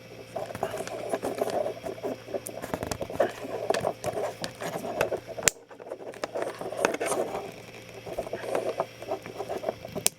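Scratchy rustling and small irregular clicks of hands handling wires and a plastic quick-splice connector as it is clamped shut with pliers. There are sharp snaps about five and a half seconds in and again near the end.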